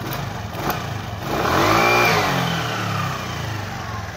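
Small motorcycle engine with a freshly serviced Tokaido carburettor, idling, then blipped once by hand at the carburettor's throttle lever about a second in: the revs climb quickly and drop straight back to idle. The quick rise and fall with no delay at small throttle is the sign of a carburettor set right, its pilot screw just reset to three turns out.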